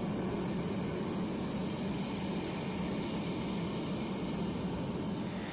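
C-5 Galaxy's turbofan engines running at low power as the aircraft taxis: a steady jet rush with a faint high whine.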